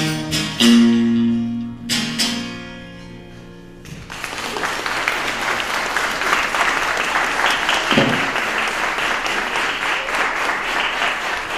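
Guitar strumming the final chords of a song, the last one left to ring out, then audience applause breaking out about four seconds in and carrying on.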